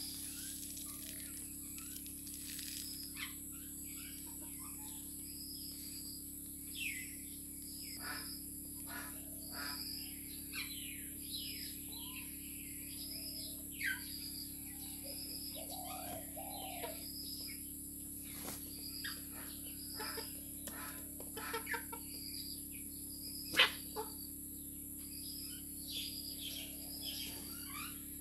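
Domestic chickens feeding on scattered rice, with short clucks and high chirps and the taps of beaks pecking the ground. One sharp tap, much louder than the rest, comes about four seconds before the end, over a steady high background hiss.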